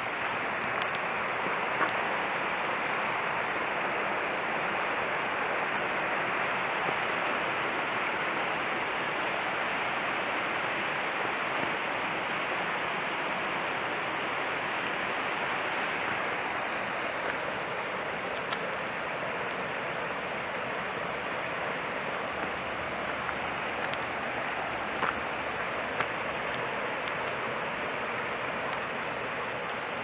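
Steady rushing of a shallow mountain stream and water spilling over a small concrete weir, with a few faint ticks.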